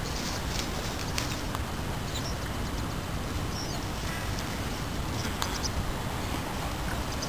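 Outdoor ambience: a steady low rumble with a few short, high bird chirps and occasional faint clicks.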